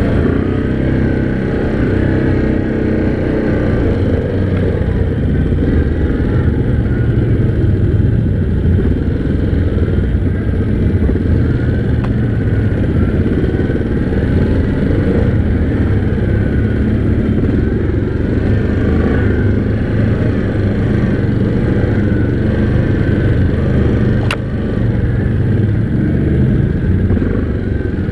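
Yamaha Grizzly 700 ATV's single-cylinder engine running steadily under way, its note wavering slightly with the throttle. One sharp click sounds near the end.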